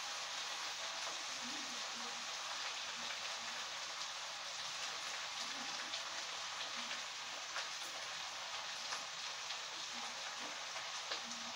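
Food sizzling in a frying pan: a steady hiss with small pops and crackles scattered through it.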